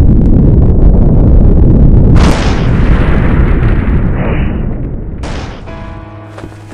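Loud deep rumbling explosions, with a second blast about two seconds in that dies away slowly. Music with held tones comes in near the end.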